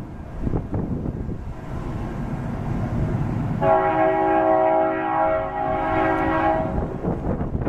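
Locomotive air horn sounding one long chord of several notes, held for about three seconds starting about three and a half seconds in, over a low rumble and wind noise.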